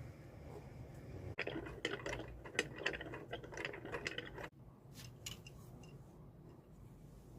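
Rapid mechanical clicking and rattling, busy for about three seconds, then a few scattered clicks.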